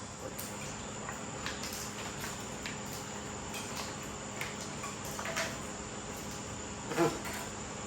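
Crickets chirring steadily under scattered light clicks and clinks of hand tools on engine parts during a tear-down, with one louder metal clank about seven seconds in.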